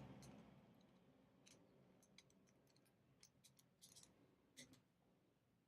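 Faint, light clicks and ticks of small metal padlock parts being handled, scattered irregularly over a few seconds, with the loudest pair about four seconds in.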